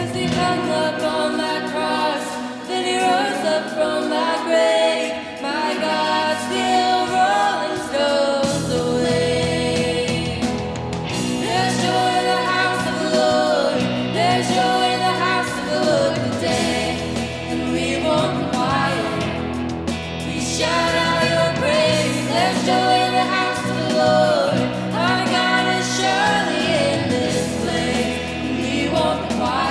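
Live worship music: a praise band with sung vocals and congregational singing.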